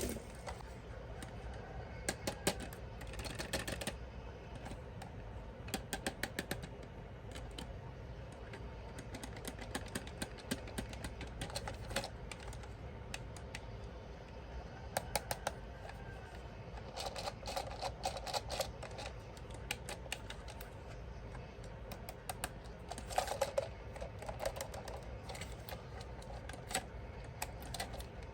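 Scattered light clicks and taps, in small clusters, from small plastic toy parts and packaging being handled during an unboxing, with a few fuller clatters about two-thirds of the way through.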